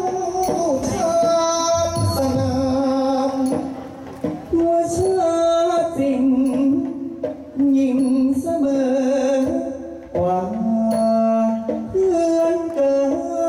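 Thai likay singing: two performers take turns singing ornamented melodic phrases into microphones, with long held notes that waver.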